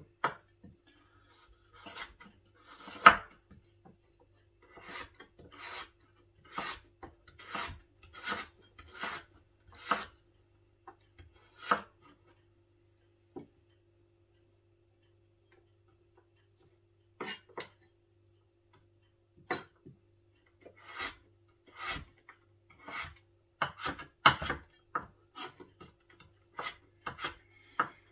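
Chef's knife slicing carrot into strips on a wooden cutting board: separate cuts, each ending in a knock of the blade on the board, about one a second, stopping for several seconds midway and then resuming.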